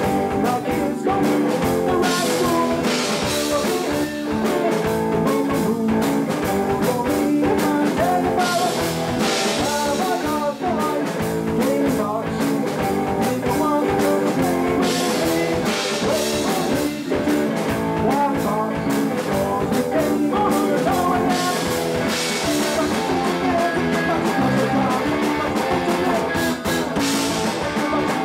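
Punk rock band playing a song live: electric guitar, bass and drums with a steady beat, and singing.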